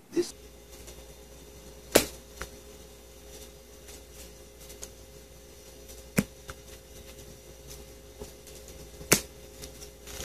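Three sharp snaps a few seconds apart: an elastic hair tie, pulled up off a bare forearm in a cat's teeth and let go, snapping back against the skin.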